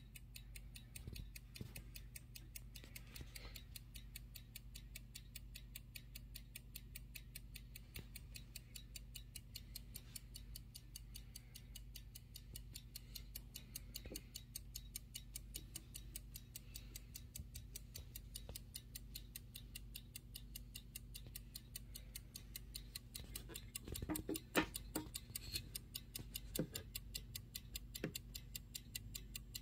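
F.W. Elliott seven-jewel clock movement with platform escapement ticking rapidly and evenly, with a few louder knocks near the end.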